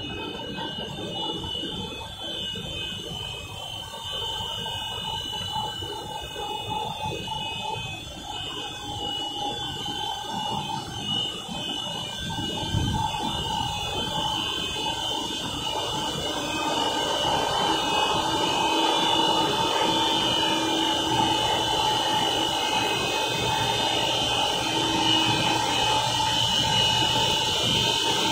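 1000 mm LLDPE stretch film cast line running: a steady machine hum with several high whining tones held throughout, growing louder a little past halfway.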